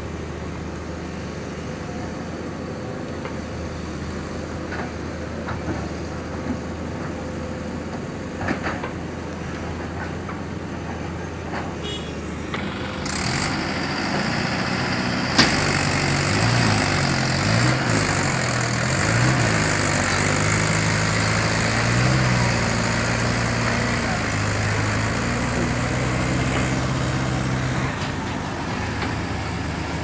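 Diesel engines of earthmoving machinery running under work: first a tracked excavator's engine at a steady pitch, then, about 13 seconds in, louder engines of a JCB backhoe loader and a farm tractor, their pitch rising and falling as they work.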